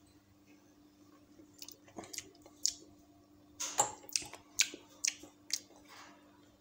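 A person sips a strong spirit of about 45% alcohol from a wine glass, then tastes it with a run of lip smacks and mouth clicks, about two a second, with one louder gulp or smack near the middle. A faint steady hum sits underneath.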